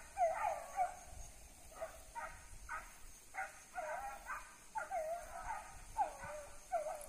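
Hunting dogs baying on the scent trail of a running paca: a string of short, faint bays, roughly one or two a second.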